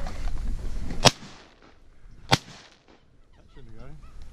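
Two shotgun shots about a second and a quarter apart, the first the louder, fired at a crippled duck on the water to finish it before it dives.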